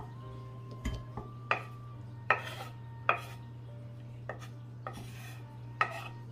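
Chef's knife scraping sliced onion off a wooden cutting board into a bowl: a series of short, sharp scrapes and knocks, roughly a second apart, over a steady low hum.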